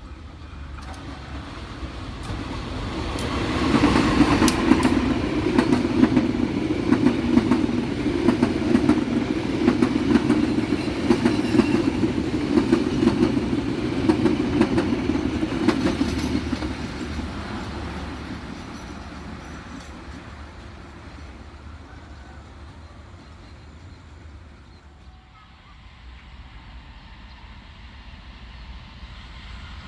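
Train passing by on the track: a rumble with dense wheel clatter builds over the first few seconds, stays loud for about twelve seconds, then fades away.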